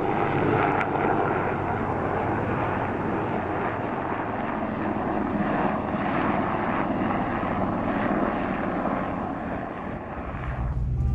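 Military helicopters flying overhead: a steady rush of rotor and engine noise that dies down near the end.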